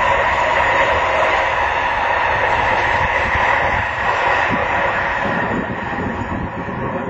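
A train passing at speed: a steady rushing noise with a whine in it, gradually easing off over the last few seconds.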